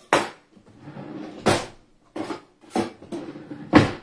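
Sharp knocks of a kitchen knife against a wooden cutting board and countertop, five in about four seconds, with a rustle between the first two.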